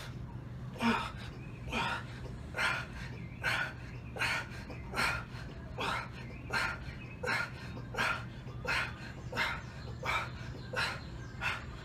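A man's hard, rhythmic breathing during a long set of heavy dumbbell bench presses, a forceful breath about every three-quarters of a second in time with the reps. A steady low hum runs underneath.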